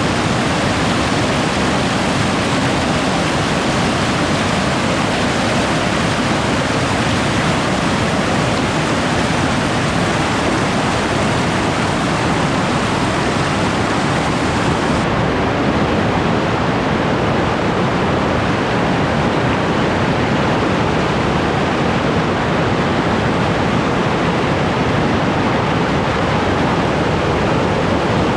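Nabuyole Falls, a large waterfall on the Nzoia River, pouring in full force: a loud, unbroken rush of falling water.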